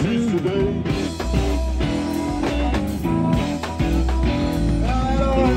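Live blues-rock band playing an instrumental passage: electric guitars, bass and drums, with a harmonica played into a vocal microphone over the band.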